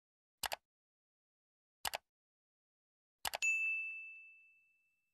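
Subscribe-button animation sound effect: three quick mouse clicks about a second and a half apart, the last followed by a notification-bell ding that rings on and fades over about a second and a half.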